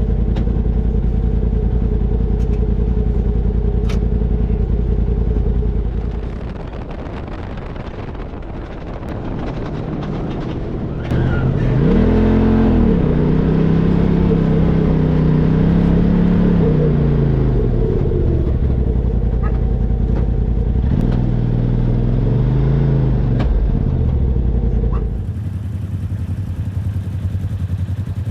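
Side-by-side UTV engine running while riding, rising and falling in pitch as it revs up and eases off, once about twelve seconds in and again briefly near twenty-two seconds.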